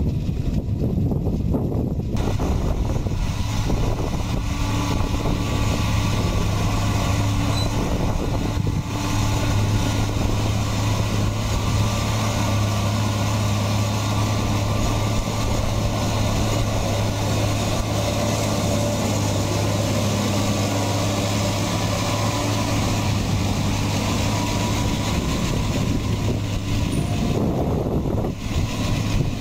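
Deutz-Fahr M650 tractor engine running steadily under load as it pulls a Pöttinger Combiline loader wagon picking up windrowed hay. The engine gives a deep, even hum over a wide rushing noise.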